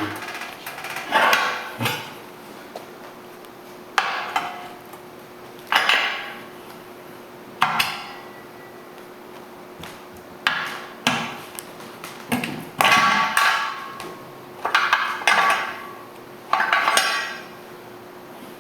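Metal tire tools striking the steel wheel rim during manual tire mounting: about ten sharp metallic clanks at irregular intervals, each ringing briefly, several in quick pairs near the middle and end.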